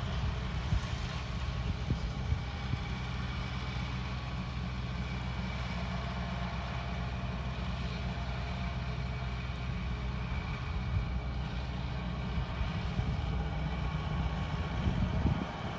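Tractor engine running steadily as it pulls a rotary mower through grass and weeds, a low, even drone.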